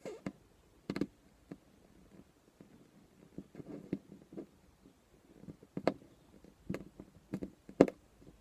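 A string of irregular sharp clicks and knocks, about a dozen, with the loudest knock near the end.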